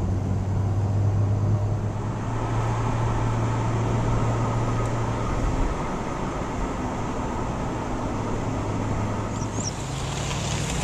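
Car engine and tyre noise heard inside the cabin while climbing a mountain road: a steady low engine hum that shifts slightly in pitch, over road rumble.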